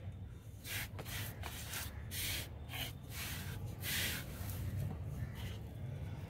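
Split coriander seeds being sprinkled by hand over loose potting mix: a run of short dry rustles as fingers rub the seeds loose and they scatter onto the soil. The rustles come in quick succession in the first four seconds or so, the loudest about four seconds in, with one more faint one near the end.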